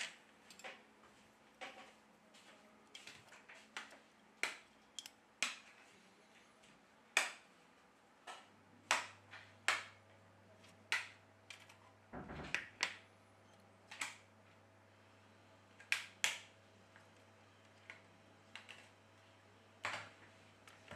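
Light, irregular clicks and taps of metal tweezers and small phone parts as a smartphone's dual rear camera module is unclipped and lifted off its motherboard. A faint low hum comes in about eight seconds in, with a short rustle a few seconds later.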